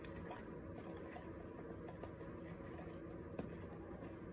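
Baking soda pouring from its cardboard box into a plastic measuring cup: a faint, soft rustle over a low steady room hum, with one light tick a little after three seconds.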